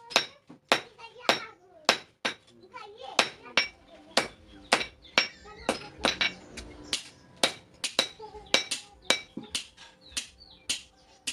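Hand hammer striking metal on an anvil, about two to three blows a second, each blow ringing briefly: forging steel by hand.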